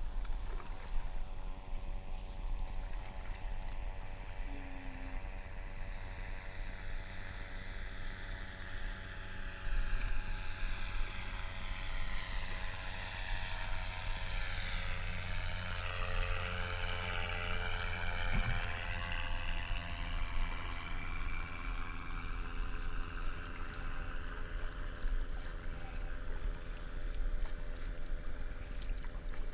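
A motorboat's engine running steadily and passing by on the water, growing louder toward the middle and fading again.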